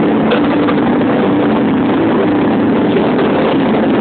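Loud, distorted playback from a party sound system, overloading the recording and holding a steady, dense level with no pauses.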